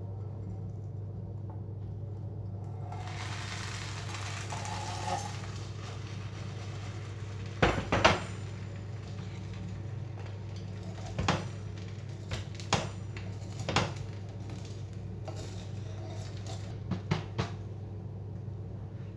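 A kadayıf pastry slid from a flat lid back into a hot frying pan, with a brief sizzle about three seconds in, then a wooden spatula knocking against the pan several times, the sharpest knocks about eight seconds in. A steady low hum runs underneath.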